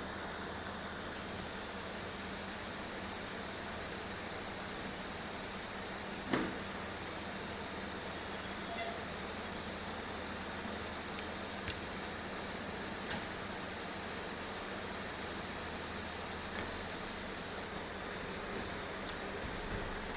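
Steady workshop background noise, a constant hum and hiss, with a few small sharp clicks, the loudest about six seconds in.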